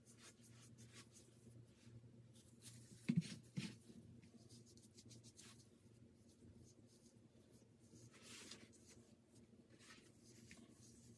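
Faint scratchy rubbing of a small brush working a gritty baking-soda-and-peroxide paste through hair, in many short strokes, with two soft low thuds about three seconds in.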